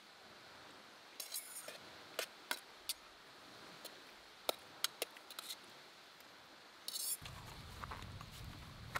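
Scattered small clicks, taps and short scrapes of camp lunch gear and utensils being handled. A low steady rumble sets in about seven seconds in.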